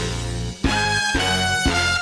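Instrumental cha-cha dance music with brass over a heavy bass line, its chords broken off about every half second.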